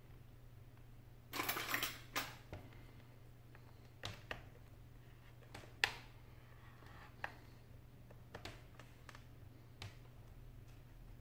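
Scattered sharp clicks and taps of a metal pry tool against the seam of an ASUS ultrabook's bottom case as it is pried open, with a short scraping rustle about a second and a half in from the laptop being handled.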